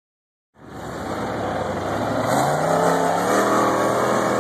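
Engine of a tube-framed off-road rock crawler revving under load as it climbs over rock ledges, its pitch rising slightly about two seconds in. The sound cuts in about half a second in.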